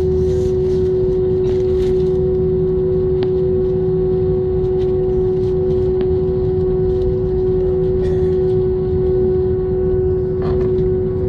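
Airbus A320's jet engines at idle thrust, heard inside the cabin over the wing while taxiing: a steady whine over a low rumble, with no change in power. A couple of faint clicks.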